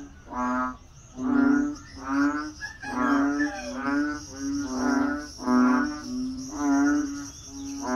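Frogs calling in a breeding chorus: a steady string of short pitched calls, each about half a second long, roughly one and a half a second, some overlapping, over a steady high insect buzz.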